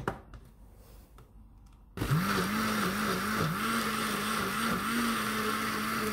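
Countertop jug blender motor switching on about two seconds in and running steadily, blending water-soaked pieces of a brown paper bag into pulp; its hum dips in pitch briefly every half second or so.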